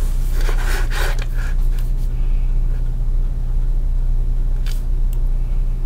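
Mechanical pencil scratching lines along the edge of a plastic drafting triangle on paper for the first second and a half, then two light clicks near the end, over a steady low hum.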